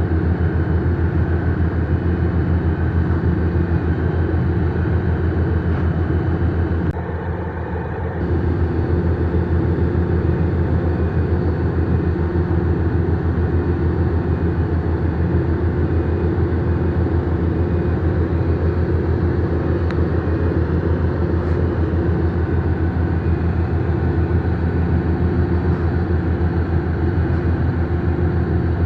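Heavy diesel engine of a construction machine, a drilling rig or excavator, running steadily under load, with a brief dip in level about seven seconds in.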